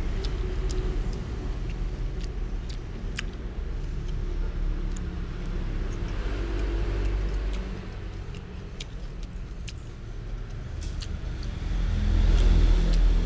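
Steady low rumble that grows louder near the end, with scattered light clicks of a metal spoon against a glass plate.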